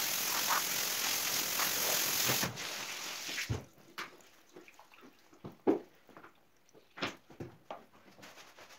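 Water rinsing a rug on a tiled floor, a steady hiss that cuts off abruptly after about two and a half seconds. Then scattered light knocks and taps, one louder about halfway through.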